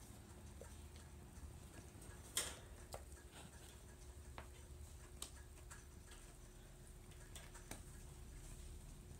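Faint scattered clicks and taps of kittens' paws and claws on a wood-look floor and a wire crate, with one sharper knock about two and a half seconds in, over a low room hum.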